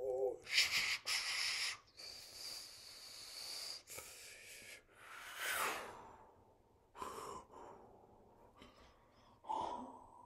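A man's breathy mouth sounds: a brief wavering hum, then a run of hisses and blown breaths, a falling whoosh a little past halfway, and a short voiced gasp near the end.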